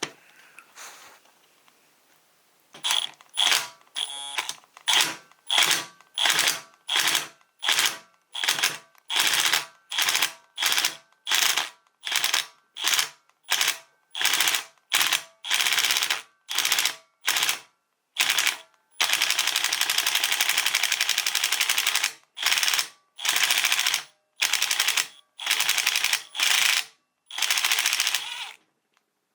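Ratchet clicking in quick back-and-forth strokes, starting about three seconds in at roughly one and a half strokes a second, with an unbroken run of about three seconds past the middle, as it winds off the valve spring compressor tool on the 4G63 head.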